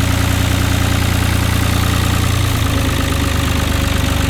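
Long 350 farm tractor's engine idling steadily, its low note shifting slightly about two seconds in.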